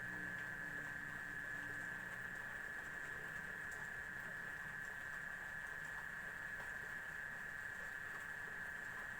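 A steady high-pitched tone that holds unchanged throughout, over a faint low hum that fades about two seconds in, with a few faint scattered ticks.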